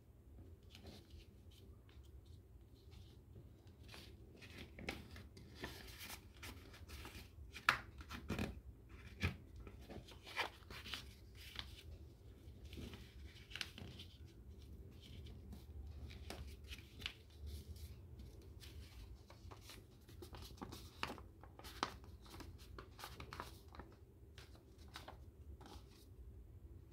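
Sheet of paper rustling and crinkling under fingers as it is folded and creased, in short irregular crackles, the loudest about eight seconds in, over a faint steady low hum.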